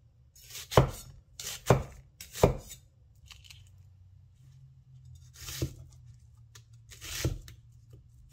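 Winco KC-401 Chinese vegetable cleaver slicing through a red onion and striking a wooden cutting board: five cuts, three in quick succession about a second apart, then two more after a pause.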